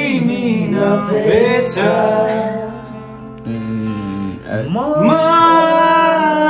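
A man sings a Nepali song to his own acoustic guitar. The singing eases off briefly midway, then rises into a long held note near the end.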